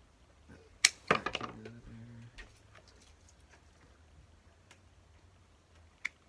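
Hand pruning shears snipping pomegranate branches: a sharp snip a little under a second in, followed by a quick flurry of clicks and rustling twigs, then faint scattered clicks and another snip near the end.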